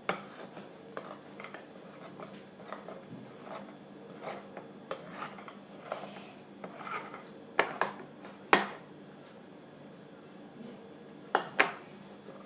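A spoon stirring a thick glue-based slime mixture in a bowl: irregular scraping and small clinks against the bowl, with a few louder knocks of the spoon on the rim in the second half.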